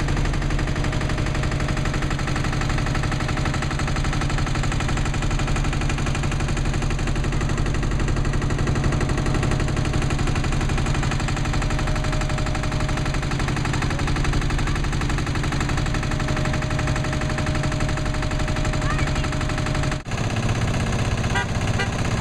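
Farm tractor engine running close by, a steady run of rapid, even engine beats. The sound breaks off abruptly about two seconds before the end and resumes as a different engine sound.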